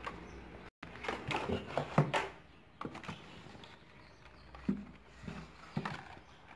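Carded Hot Wheels blister packs being handled and pulled from a cardboard case: plastic blisters and card backs rustling and clacking against each other. The handling is busiest about one to two seconds in, with a few single clicks later on.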